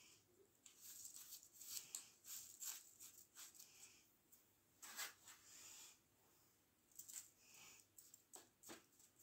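Faint, irregular rustling and scraping of fingers pressing potting soil around a grapevine cutting in a cut-down plastic bottle, with the thin plastic crinkling now and then.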